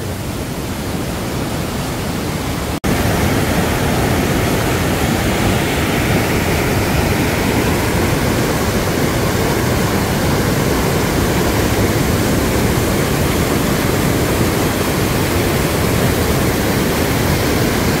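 Rushing whitewater of a mountain stream running high, tumbling over and between granite boulders below a waterfall: a steady, loud rush of water. It breaks off for an instant about three seconds in and comes back a little louder.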